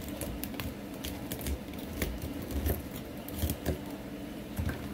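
Kitchen knife cutting broccoli florets away from the stalk on a small cutting board: irregular crisp clicks and knocks of the blade through the stems and onto the board, with a few duller thumps.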